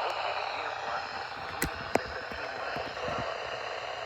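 Steady hiss of weather-radio receiver static, with two sharp clicks about one and a half and two seconds in.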